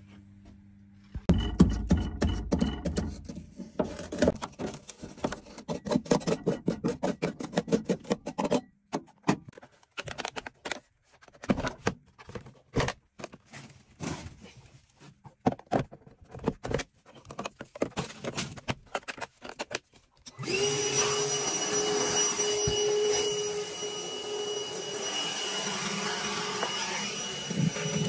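Irregular knocks, clicks and clatter of boiler parts and tools being handled. About twenty seconds in, a vacuum cleaner starts with a short rising whine and then runs steadily, sucking perished-seal ash out of the boiler's heat exchanger.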